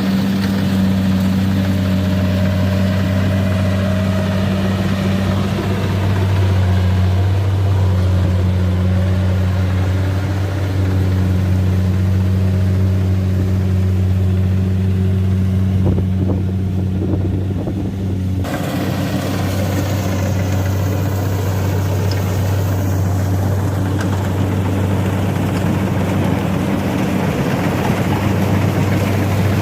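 Kubota DC93 combine harvester's diesel engine running steadily at working speed with a deep, even hum, as the machine harvests rice.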